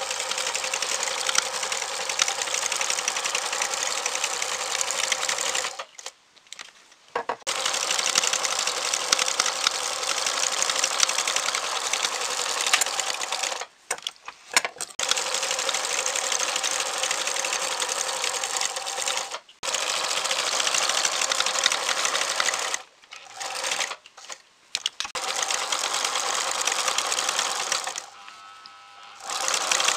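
Domestic electric sewing machine stitching fabric, running in spells of several seconds with several short stops as the fabric is fed and turned.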